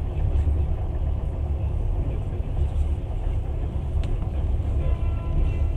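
Passenger train running along the track: a steady low rumble of wheels on rails, with a single sharp click about four seconds in.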